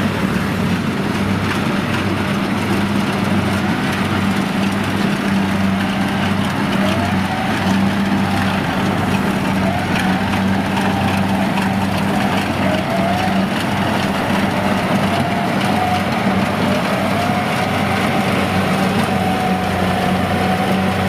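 Kubota DC-70G combine harvester's diesel engine and threshing gear running steadily under load as it cuts rice in a soft, muddy paddy. A thin whine that wavers in pitch rides above the engine hum from about a third of the way in.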